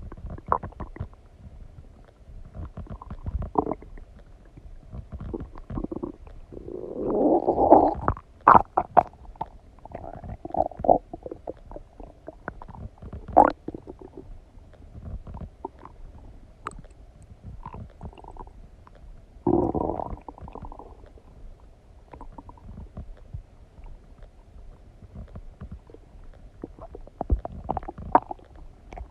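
Human stomach rumbling and gurgling while digesting a meal of donuts: irregular squelches and sharp little pops, with two longer, louder gurgles, one about seven seconds in and one about twenty seconds in.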